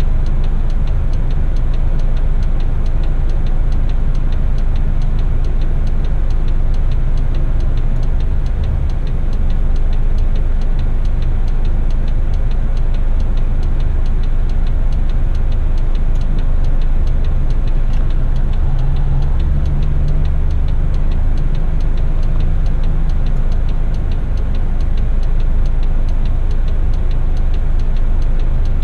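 Heavy rigid truck's diesel engine idling steadily, heard from inside the cab, with the low hum swelling briefly about two-thirds of the way through.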